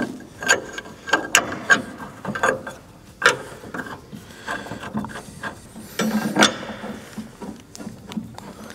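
Plastic vending-machine foot with a metal floor bracket on its threaded stud being screwed by hand into the thread under the machine: irregular clicks and short scrapes of plastic and metal as it turns, with a longer scrape about six seconds in.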